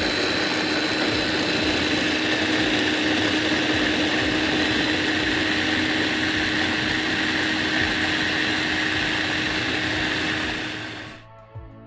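Small electric food chopper running steadily, its motor and blade whirring through leafy greens and water in a plastic bowl with a constant hum, then running down and stopping about a second before the end.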